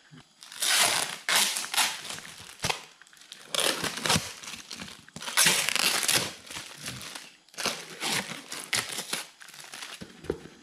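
Irregular rustling and crinkling noises in a series of short bursts.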